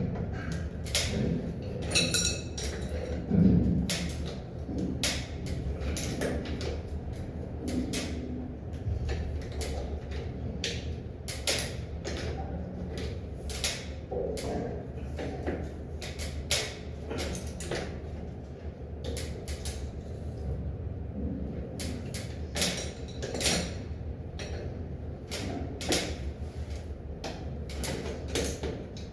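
Irregular clicks and knocks of hand work over a steady low hum, with a louder knock about three and a half seconds in.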